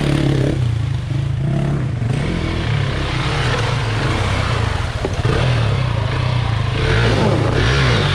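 Husqvarna dual-sport motorcycle engine revving up and down in short throttle blips as the bike works through a rocky creek crossing, with water splashing and rocks clattering under the wheels.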